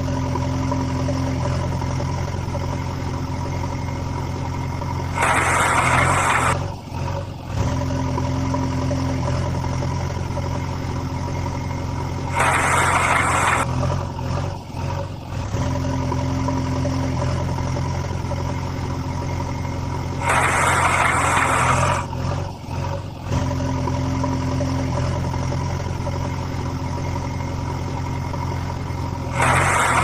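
Engine sound, idling steadily, laid on as a repeating loop, with a short louder rushing burst four times, about every seven and a half seconds.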